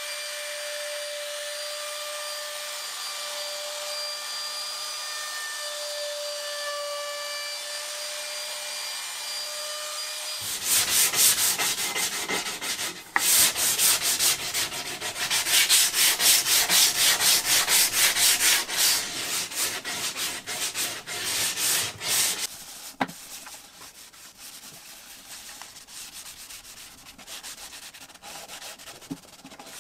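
A steady high whine for about the first ten seconds, then a sanding block rubbed by hand over a wooden board in rapid back-and-forth strokes, the loudest part. Near the end come softer rubbing strokes as a cloth wipes finish onto the wood.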